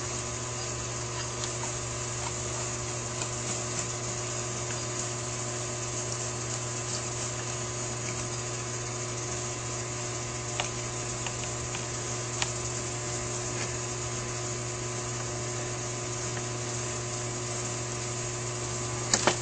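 Steady electrical hum with a few fixed higher tones, under a few faint, sparse clicks of small carburetor parts and hand tools as the secondary diaphragm cover is screwed on.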